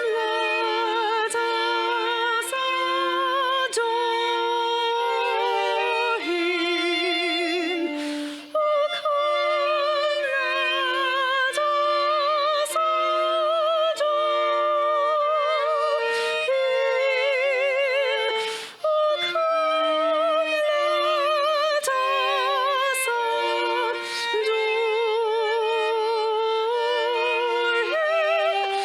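A slow, lyrical melody played on a violin with wide vibrato over held accompanying notes, with brief pauses between phrases.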